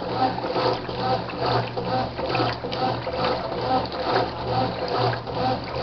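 Brastemp washing machine agitating a tub full of water: water sloshing and a motor hum that swell in a steady rhythm, about twice a second.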